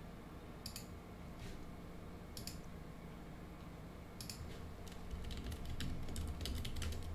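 Computer keyboard keys tapped: a few scattered keystrokes, then a quicker run of them in the last two seconds.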